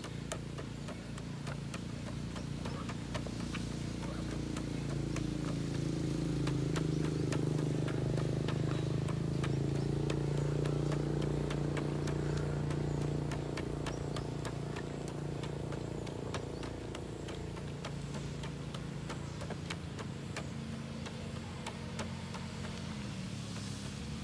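An engine hum from a passing vehicle swells over several seconds, holds, then fades, over a steady scatter of light clicks and taps.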